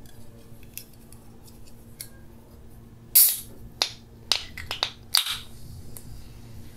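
A 250 ml Coca-Cola aluminium can being opened by its pull tab. A sharp crack with a short hiss of escaping gas comes about three seconds in, followed by a few small clicks, and a second crack and hiss comes about two seconds later.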